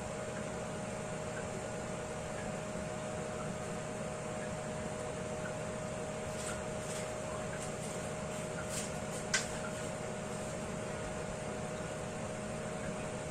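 Steady fan hum with a constant tone throughout. In the middle come a few light clicks, the loudest a single sharp click about nine seconds in.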